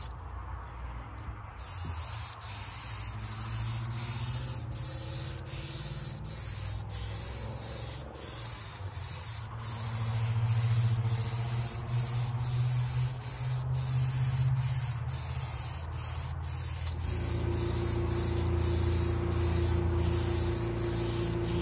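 Spray gun misting water-based gilding glue: a steady high hiss that starts about a second and a half in and is broken by many brief gaps, over a low motor hum that shifts about seventeen seconds in.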